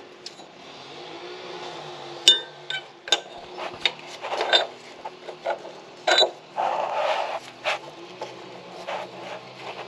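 Metal subframe bushing collars clinking and scraping as they are handled and pushed into the rear subframe's rubber bushings, with gloved hands rubbing against the parts: a string of sharp clicks and clinks with short bouts of rubbing. A steady low hum runs underneath.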